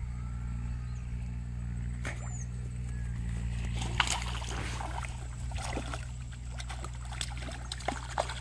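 Hooked fish thrashing at the water's surface as it is pulled in: a run of sloshes and sharp splashes starting about halfway through, over a steady low hum.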